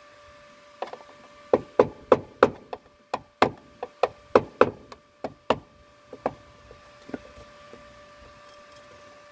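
Repeated sharp metal knocks, about three a second and tailing off after about six seconds, as a flat-bladed chisel or screwdriver is worked against the welded steel of a car's door pillar.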